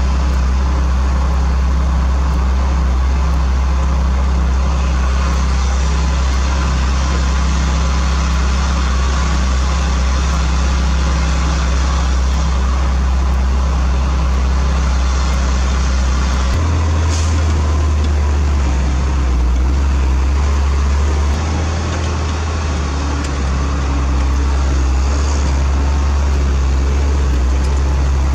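Heavy diesel engine running steadily close by, stepping up to a slightly higher speed about sixteen seconds in.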